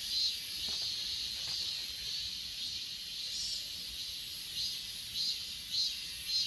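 Chorus of grass insects (crickets) calling: a steady, very high-pitched trill, with another insect's chirp repeating about twice a second that drops out midway and returns near the end.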